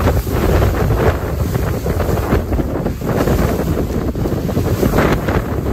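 Wind buffeting the microphone over the rush and splash of water thrown up by the hull of a Windrider 17 trimaran under sail.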